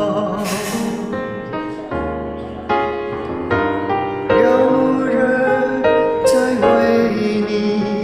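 A hymn sung with piano accompaniment, in slow held notes.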